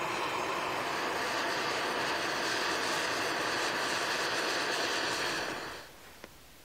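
Steady rushing hiss from a Swedish torch log being lit, smoke and then flame pouring out of its top; the hiss cuts off sharply about six seconds in.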